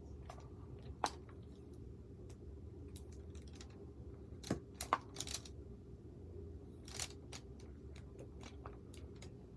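A diamond-painting drill pen tapping resin drills onto the sticky canvas: scattered small clicks and taps, loudest in a quick cluster about halfway through, over a low steady hum.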